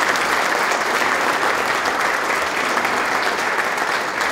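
Audience applauding, dense steady clapping that eases slightly near the end.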